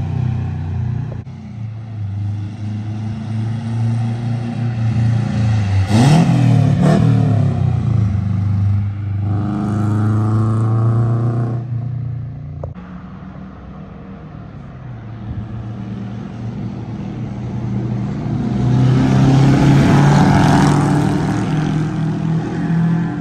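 Honda Civic EF hatchback with 1320 Performance unequal-length headers driving past several times. The exhaust note rises as the car comes near and drops in pitch as it goes by. It is loudest about six seconds in and again near the end.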